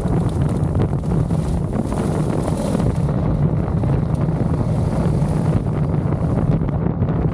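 KTM adventure motorcycle engine running steadily at riding speed on a gravel road, with heavy wind noise on the microphone.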